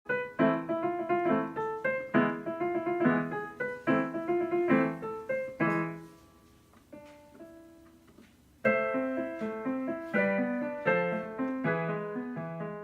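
Solo piano music playing a gentle melody over chords. It thins to a few soft notes about six seconds in, then resumes fuller near nine seconds.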